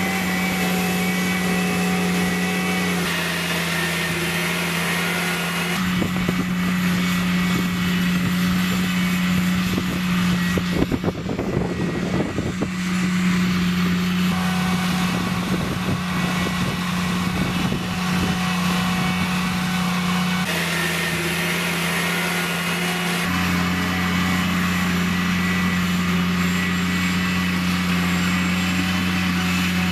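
Diesel engine of a tracked Bron drainage plow running steadily with a low hum as it pulls the plow through the ground laying drain pipe. From about ten to thirteen seconds in, a stretch of rattling and clatter rises over the engine.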